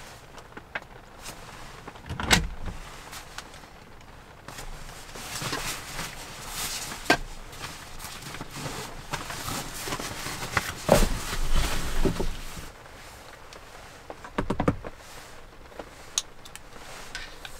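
Fabric rustling from a cloth bag and a sleeping bag being handled, broken by several sharp knocks and bumps, the loudest about two seconds in, around eleven seconds, and near fifteen seconds.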